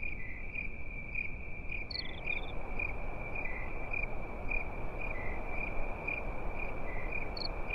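Crickets chirping: a steady high trill with regular chirps about twice a second, over a faint low hiss. It is the stock crickets sound effect used as a gag for an awkward, empty silence.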